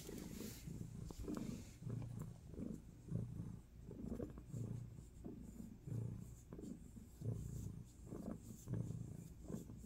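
Orange tabby cat purring close up as its head is stroked: a low, steady rumble that swells and fades with each breath in and out.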